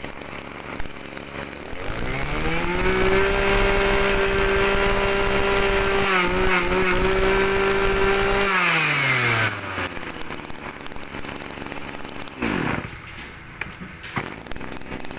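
Kioritz 253 brush cutter's small two-stroke engine idling, then revved up to full throttle about two seconds in and held steady for about six seconds before dropping back to idle.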